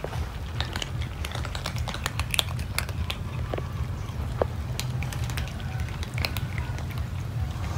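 A group of cats crunching dry kibble: a dense, irregular stream of short, sharp crunches and clicks from many mouths at once, over a steady low hum.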